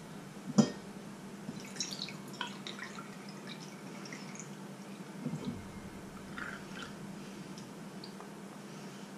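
Liquid from an opened tin can dripping and trickling into a metal funnel in small irregular splashes. A sharp metallic knock comes about half a second in, and a low steady hum runs underneath.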